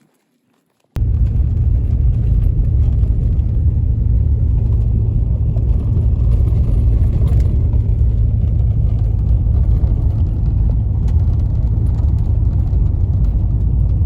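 Steady low rumble of a pickup truck driving on the road, heard from the cab. It starts suddenly about a second in.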